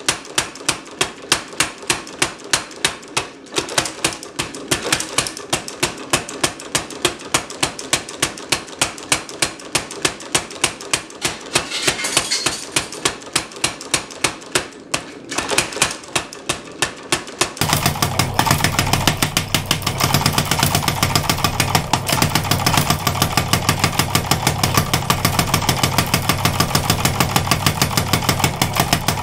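Mechanical power hammer pounding a hot bar of 5160 leaf spring steel, drawing it out with a fast, even run of blows. Some way past halfway the blows come thicker and more even, over the steady hum of the hammer's motor.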